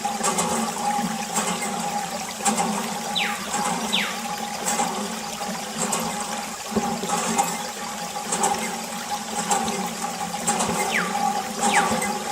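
Water running and splashing from a miniature water pump in a model, over a steady hum. A few short chirps falling in pitch sound twice, at about three seconds in and near the end.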